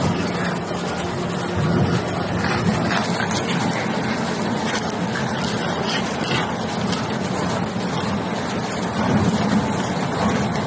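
Wood waste shredder running under load: a loud, steady machine drone with scattered sharp cracks and snaps.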